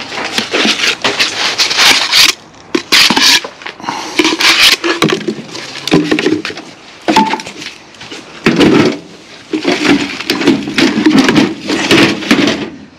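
A Bauker electric breaker and its steel chisel bits being handled in their metal carry case: irregular metal clanks, knocks and rattles as the tool and bits are shifted about.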